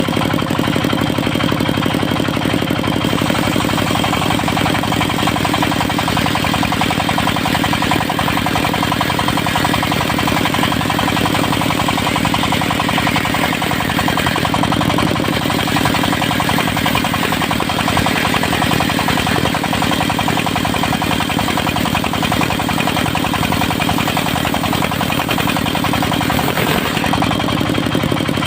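Diesel engine of a mobile circular sawmill running steadily, with an even rapid chugging.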